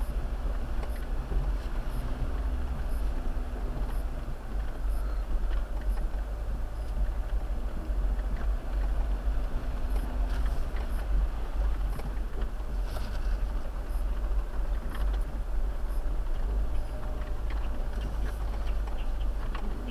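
Jeep Wrangler on the move: a steady low rumble of engine and road noise, with faint light ticks about once a second.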